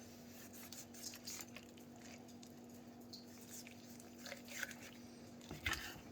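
Faint knocks and rustles of raw chicken pieces being handled and set down on a cutting board, a few slightly louder ones near the end, over a steady low hum.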